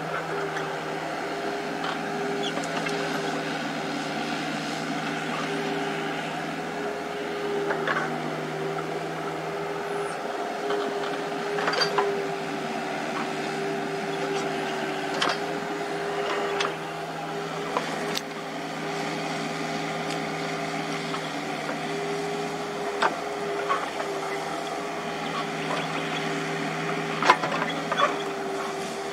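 Komatsu mini excavator's engine running with a steady hum while the machine digs, with scattered sharp knocks and clanks as the bucket works through brush and soil, the loudest near the end.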